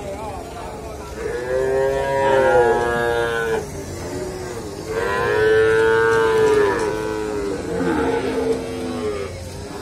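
Pegon calves bawling: a long call about a second in, another about five seconds in, and shorter overlapping calls near the end.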